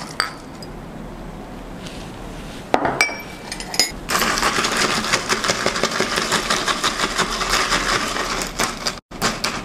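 A few sharp glass clinks about three seconds in. Then, from about four seconds in, ice cubes rattle and clink rapidly against a plastic cup as iced espresso is stirred with a plastic spoon, for about five seconds.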